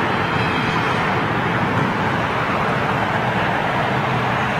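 Steady outdoor airport ambience: a continuous, even roar of distant jet engines and ground noise with no single event standing out.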